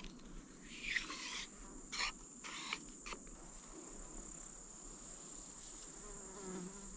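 An insect trilling in one steady, high-pitched note, with a few brief rustles and clicks in the first half.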